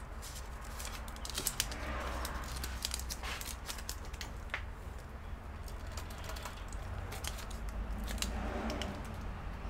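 Scattered small clicks, taps and crinkles of double-sided adhesive tape being handled, peeled and pressed into place, over a steady low hum.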